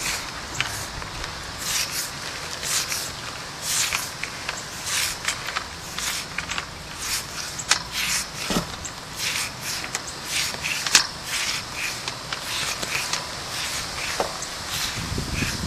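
Sewer inspection camera's push cable feeding through a clay sewer lateral, giving irregular scraping and crackling a few times a second.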